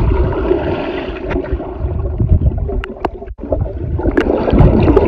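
Muffled underwater sound from a microphone submerged in a swimming pool: a dense rumble and gurgle of churned water and bubbles as a swimmer dives down, with a few sharp clicks.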